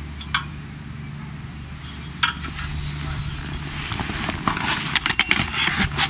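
Footsteps and knocks on a rusty steel grating as someone climbs a metal stair: a sharp knock near the start, another about two seconds in, then a quick run of clanks in the last two seconds, over a steady low hum.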